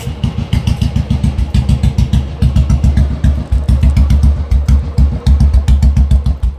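Old Royal Enfield Bullet's single-cylinder four-stroke engine running at a slow, even exhaust thump, about eight to ten beats a second. The beat grows deeper and heavier from about two and a half seconds in.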